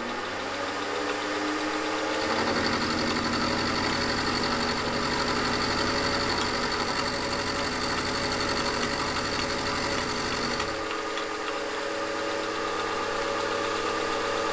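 Vertical milling machine running, its end mill cutting a stack of four glued-together quarter-inch square mild steel bars. There is a steady motor whine that rises in pitch over the first two seconds, and a rougher, chattering cutting sound from about two seconds in until about eleven seconds in.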